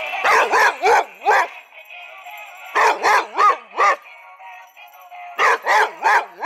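Boxer dog barking at a Santa Claus figure in three quick runs of four barks each, with short pauses between the runs. A tune plays steadily underneath.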